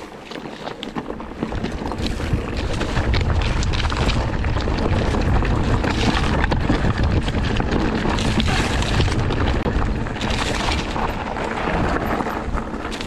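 Wind buffeting the microphone over the rattle and rolling noise of a mountain bike on rough, rocky ground, with many small knocks and clicks; it grows louder about a second and a half in.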